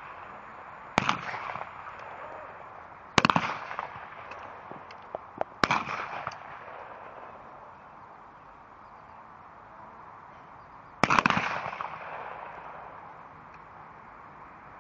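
Shotguns firing in turn along a trap line: four single shots, each trailing off in a short rolling echo. The first three come about two and a half seconds apart, the last after a pause of about five seconds.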